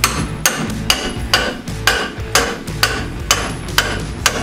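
Steady hammer blows on steel, about two a second, struck at a 1963 Corvette's front steering knuckle to pop the ball joint loose.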